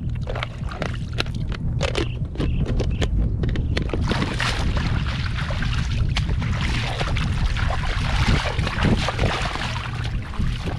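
Water splashing and sloshing, with short knocks and splashes in the first few seconds and denser splashing from about four seconds in, over steady wind buffeting the microphone.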